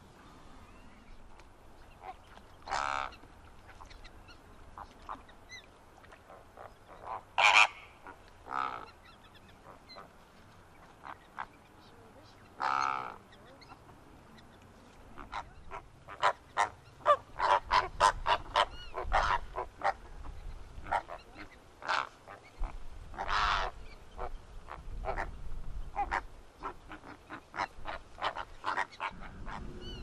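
Flamingos honking with goose-like calls: a few loud, drawn-out honks in the first half, then a rapid run of short honks from many birds through the second half.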